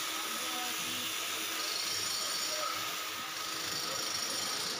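Steady mechanical hum and hiss, even in level, with a few faint steady tones running through it.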